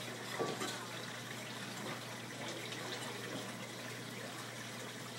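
A knife chopping freshwater eel on a plastic cutting board, a few faint taps over a steady rushing background noise.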